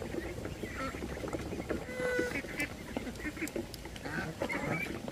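A flock of penned domestic waterfowl calling: many short, overlapping calls, with one longer, steady call about two seconds in.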